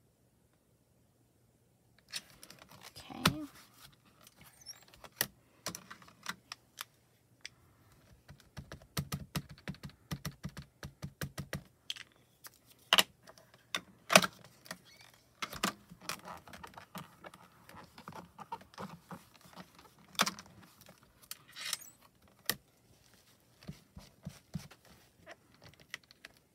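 Clear acrylic stamps, ink cubes and a stamp positioning tool being handled on a glass craft mat: irregular sharp clicks, taps and clatter that start about two seconds in, as stamps are inked and pressed, and the tool's lid is opened and closed.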